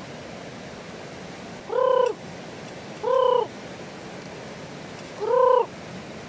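A chicken calling three times, each call a short, drawn-out pitched note about half a second long, spaced a second or two apart.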